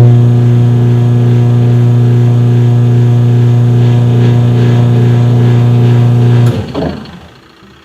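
Twin-tub washing machine's wash motor switched on, giving a loud, steady, strange hum; it stops suddenly about six and a half seconds in. The motor is turning but the pulley and agitator do not move, the sign of a loose or worn drive belt.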